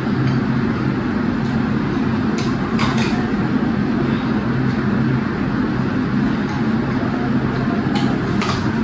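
Steady low mechanical hum, with a few short crisp crunches of bites into an apple about two and a half to three seconds in and again near the end.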